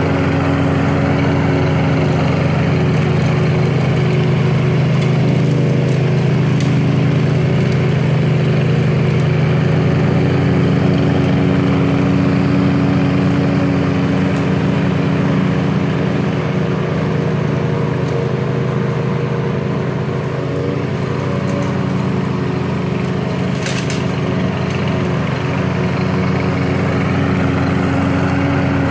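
Gas engine of a Toro 22-inch Recycler all-wheel-drive self-propelled mower running steadily under load while it cuts grass, with one brief click about three-quarters of the way through.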